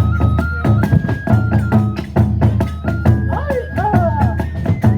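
Kagura accompaniment music: drums and hand cymbals strike a quick steady beat under a high bamboo flute melody that holds notes and steps between them.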